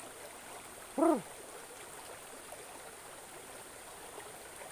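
Steady rush of a shallow stream flowing over rocks, with one short pitched sound that falls in pitch about a second in.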